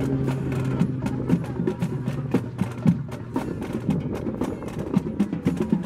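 High school marching band playing: low brass holding long notes for the first second or so, then shorter notes, over percussion with many sharp stick clicks.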